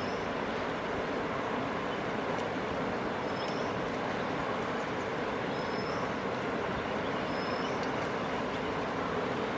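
Steady rushing of river water, with a bird repeating a short, high, rising whistle every two seconds or so.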